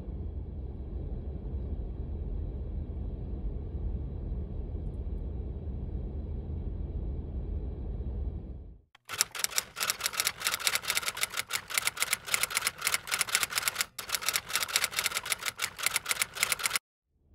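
A steady low rumble as a diesel passenger train approaches in the distance. About nine seconds in it cuts to rapid, continuous typewriter clacking, which lasts about eight seconds and stops abruptly.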